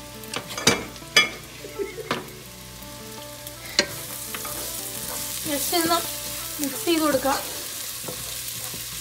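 Chicken and onion curry masala sizzling in a nonstick pot as it is stirred, with a few sharp clicks of the spoon against the pot in the first four seconds. From about four seconds in, the sizzle grows louder, with short squeaky scrapes as the spoon works through the mix.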